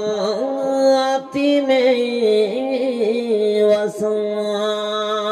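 A single voice chanting Pali Buddhist verses as a slow, drawn-out melody, holding long wavering notes with only brief breaks for breath.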